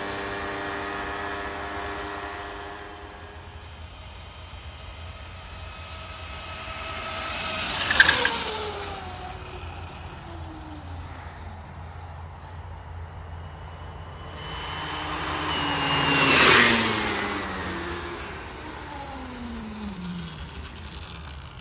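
Small motorcycles racing along a road: an engine note fades away into the distance over the first few seconds, then two machines pass close by about eight seconds apart, each loudest as it passes and dropping in pitch as it goes.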